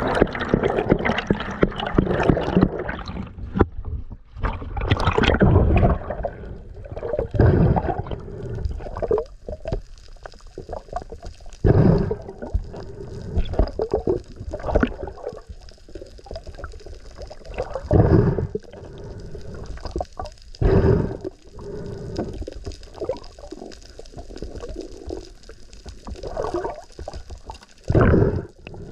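Water sloshing and gurgling as heard underwater, in irregular surges every few seconds.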